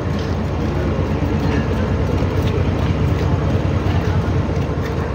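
Passenger train running along the track: a steady, loud rumble of the coach's wheels on the rails, with faint irregular clicks.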